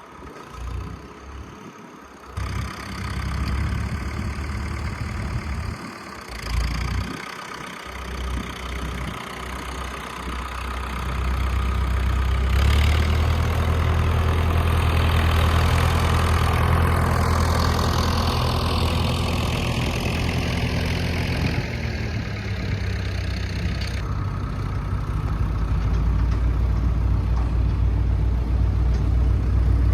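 Tractor engine running steadily while towing a round baler. It grows louder about twelve seconds in, and a high whine slides down in pitch partway through.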